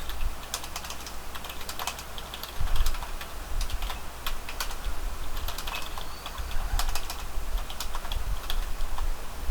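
Typing on a computer keyboard: quick, irregular keystrokes entering configuration commands. A low thump comes about two and a half seconds in.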